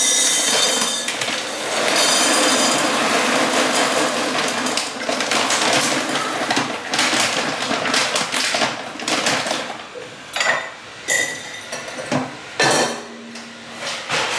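Dry pet kibble poured from a bag into a hard canister: a dense, continuous rattle of pellets for about ten seconds, then a few separate knocks and clinks.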